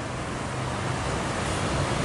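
Roadside traffic noise: a large engine hums low under a steady rushing noise that slowly grows louder.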